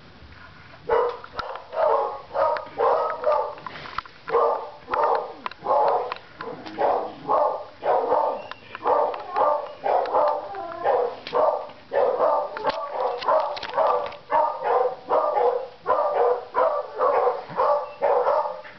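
A dog barking over and over, about two barks a second, starting about a second in.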